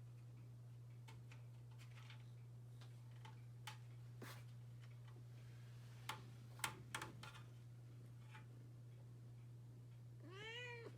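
A kitten meows once near the end, a short meow that rises and then falls in pitch. Before it come scattered light clicks and taps, a few louder ones about six to seven seconds in, over a steady low hum.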